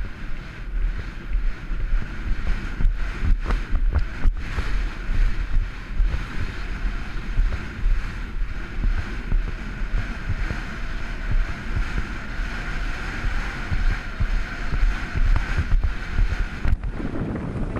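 Wind buffeting the camera microphone: a steady low rumble with gusty swells, and a few sharp clicks about three to four seconds in.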